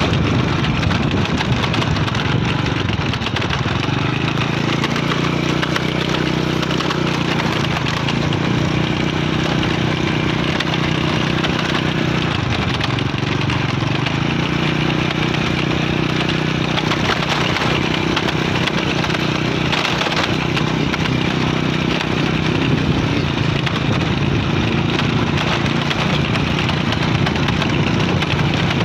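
Small motorcycle engine running steadily under way, its low hum holding a near-constant pitch, under a constant crackle of wind and road noise on the microphone.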